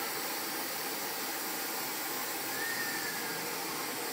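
Homebuilt gantry CNC router running, a steady even rushing machine noise, with a faint short whine about two and a half seconds in.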